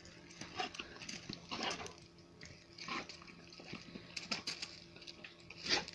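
A pet dog making short, scattered noises, a few seconds apart, with the loudest one near the end.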